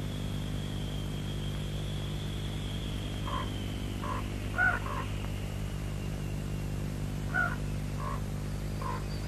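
Birds giving short calls in small clusters, over a steady low hum and a faint high whine.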